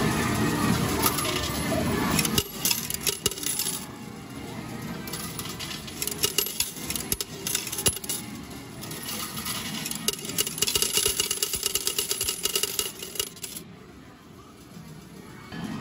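Metal game medals clinking and clattering on the pusher table of a coin-pusher medal game, in clusters of sharp clicks. A denser, louder din of arcade noise fills the first couple of seconds.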